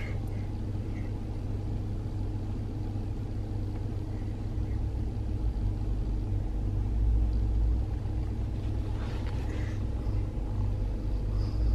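Low, steady rumble of a car's engine and road noise heard inside the cabin, swelling a little midway and again near the end.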